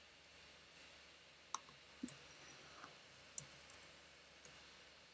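About ten light, scattered clicks of a computer keyboard and mouse over a faint room hiss, starting about a second and a half in.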